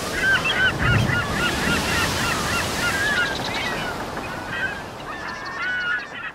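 A flock of birds calling, many short honking calls overlapping, over a steady rushing noise; the sound fades out near the end.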